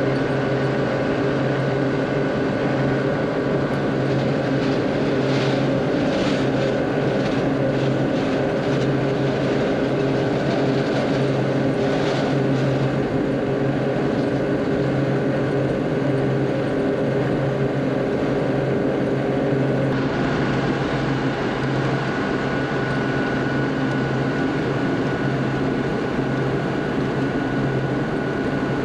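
M35 deuce-and-a-half military truck running at a steady speed on the road: a constant diesel engine drone with tyre and drivetrain noise.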